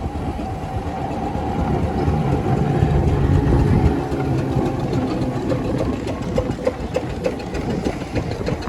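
Steam traction engines and steamrollers running with a steady low rumble; in the second half a regular beat of about three strokes a second comes in.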